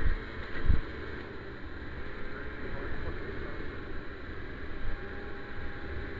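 Wind rushing over the microphone of a rider on a moving 50cc bike, with the bike's small engine running steadily underneath. A couple of low thumps come in the first second.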